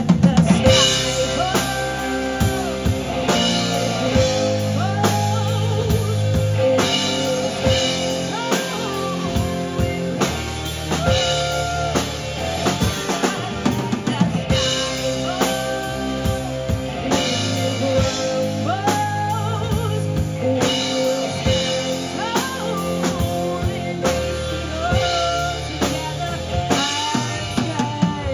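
Live band playing, a drum kit with bass drum and snare keeping a steady beat under bass and a gliding melody line.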